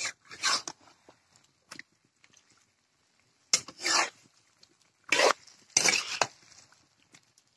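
A spatula scraping and stirring chunks of chicken and potato in a wok, in four or five short strokes with quiet pauses between them.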